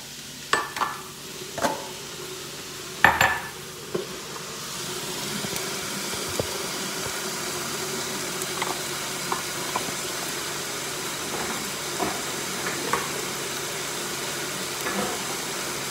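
A few sharp clinks and knocks of kitchen utensils, then about four seconds in a steady hiss rises and holds, with a low hum beneath it and an odd light click.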